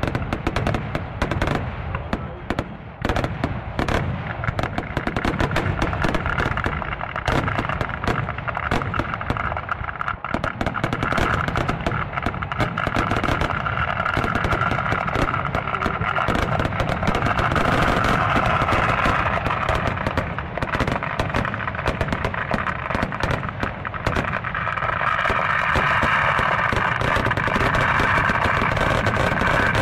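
Fireworks going off in a dense, continuous barrage of rapid bangs and crackling, like machine-gun fire, with no pause.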